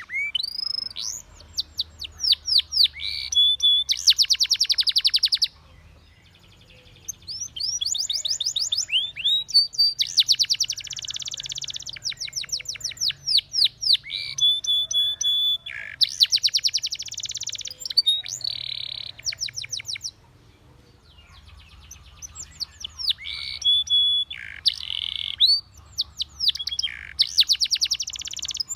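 Spanish Timbrado canary singing in long phrases of rapid trills and fast repeated notes, with two short pauses, about six and twenty seconds in.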